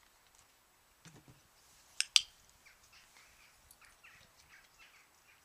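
Two sharp clicks in quick succession, about a fifth of a second apart, about two seconds in, over faint bird chirps.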